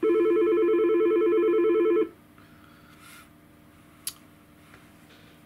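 A phone ringing: one ring about two seconds long, a rapid warbling trill on two tones, which then stops. A single sharp click comes about four seconds in.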